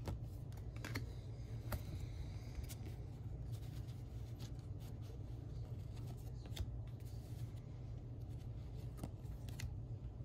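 Trading cards being flipped through by hand, one card slid across the stack after another, giving scattered light clicks and paper scrapes over a steady low hum.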